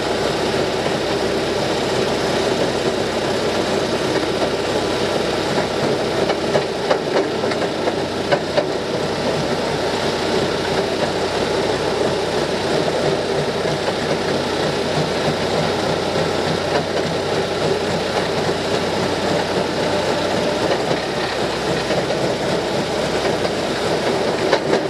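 Fairmont MT14 rail motorcar running along the track, its engine, chain drive and wheels on the rails making a steady mechanical rumble, with a few louder knocks around a third of the way in. The owner felt the transmission, chain and wheels did not sound quite right; the rear axle was beginning to fail.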